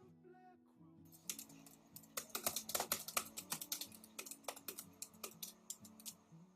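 Typing on a computer keyboard: a quick, uneven run of key clicks that starts about a second in and stops shortly before the end.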